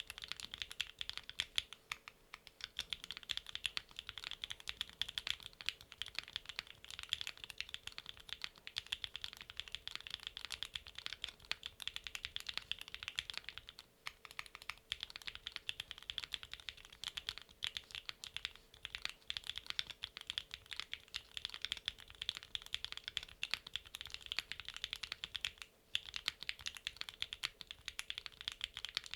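Fast, continuous typing on a NEO70 gasket-mount mechanical keyboard with Gateron Milkshake linear switches, an FR4 plate and PBT/ABS double-shot keycaps: a dense stream of keystrokes with three brief lulls.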